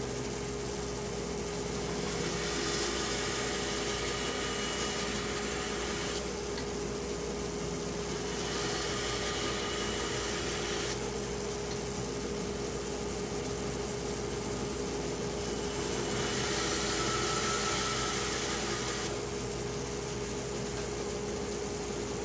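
A stationary woodworking power tool running steadily with a constant hum while cherry is milled. Three times it takes a cut of a few seconds, and the sound brightens with wood-cutting noise before easing back to the idle hum.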